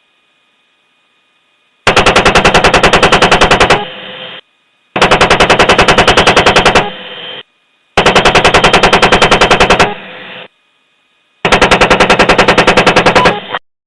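AH-64 Apache's 30 mm chain gun firing four bursts of rapid, evenly spaced shots, each about two seconds long, with short pauses between them. Before the first burst only a faint radio hiss and hum is heard.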